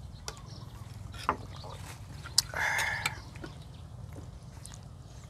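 Table sounds during a meal: a few scattered clicks of spoons and chopsticks against dishes and glass, with a sharper click about two and a half seconds in followed by a brief half-second rustle, over a steady low hum.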